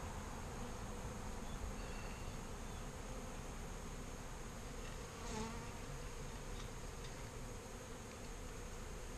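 Package of honeybees buzzing steadily, a continuous hum of many bees, with a brief louder buzz about five seconds in.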